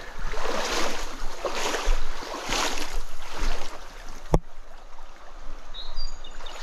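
Stream water rushing and splashing, swelling about once a second, with a single sharp click about four seconds in.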